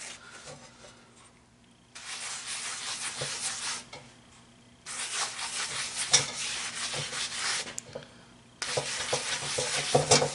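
Paper towel soaked in vegetable oil rubbing over the underside of a cast iron Dutch oven lid, seasoning it. The rubbing comes in three spells of a couple of seconds each, starting about two, five and eight and a half seconds in, with short quiet pauses between.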